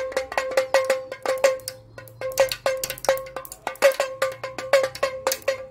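Plastic toy damroo (pellet drum) twisted back and forth, the beads on its strings striking the drumheads in rapid, uneven clicking strokes, each with a short ringing tone. There is a brief lull about two seconds in.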